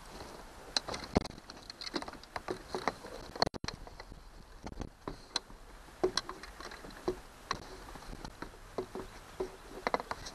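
Irregular knocks, taps and small splashes as fishing gear is handled in and against a plastic kayak on the water.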